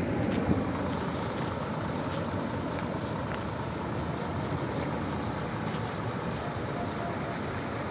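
Steady background vehicle noise, a continuous rumble of running engines and traffic with no distinct events.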